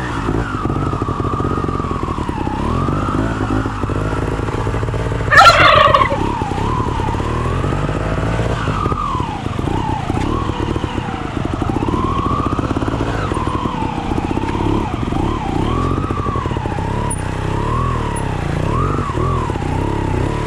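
Trials motorcycle engine running at low speed, its revs rising and falling constantly as the throttle is worked. About five seconds in there is a brief, loud high-pitched shriek that falls in pitch.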